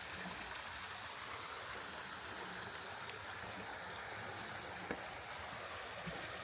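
A small creek running and trickling down over rock: a steady rush of water.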